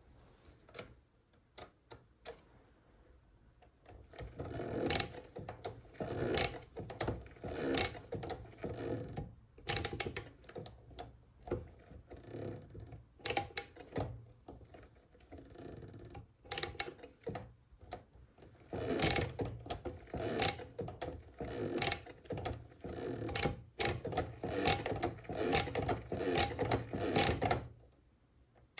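Odhner Model 8 pinwheel calculator being hand-cranked turn after turn: a run of clicking and clattering from the pinwheel drum and register wheels, starting after a few faint clicks about four seconds in, with a lull in the middle. This is the machine cleaned and repaired, its crank turning noticeably smoother.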